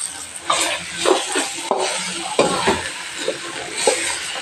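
Flat spatula scraping and stirring whole brinjals and spice powders in oil in a steel pan, in irregular strokes, over a light frying sizzle.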